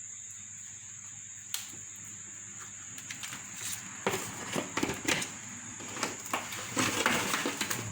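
Light clicks and knocks of a roasting pan and utensils being handled while the roast chicken and pork are turned, coming thick from about halfway in, over a steady faint hiss.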